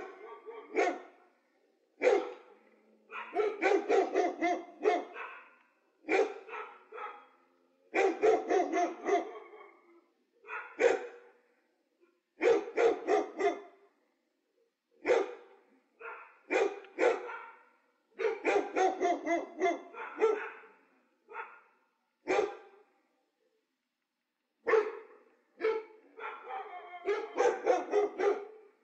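A dog barking in repeated volleys of quick barks, each lasting a second or two, with short pauses between them and a longer pause a little after the middle.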